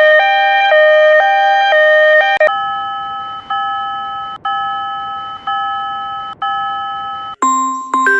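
Electronic Japanese railroad-crossing warning bell sounds. A fast, alternating two-tone clang runs for about the first two and a half seconds, then gives way to a single-pitched ding struck about once a second, each stroke fading. Near the end a different, lower chime pattern starts.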